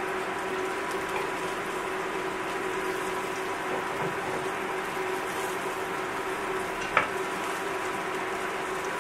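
Onion and garlic sizzling steadily in hot oil in a nonstick frying pan, with a single short click about seven seconds in.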